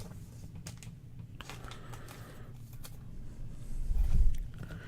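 Quiet handling of trading cards: a few faint clicks and rustles, with a dull low bump about four seconds in.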